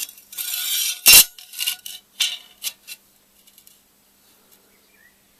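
A flat steel piece scraped across a thick steel plate and set down. There is a short scrape, a loud metallic clank about a second in, and then a few lighter clinks.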